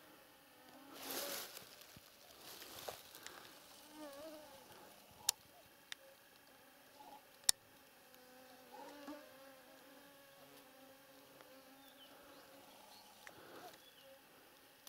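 A flying insect buzzing close by, its pitch wavering as it moves about. There are a few sharp clicks in the middle, and soft rustles about a second in and near the end.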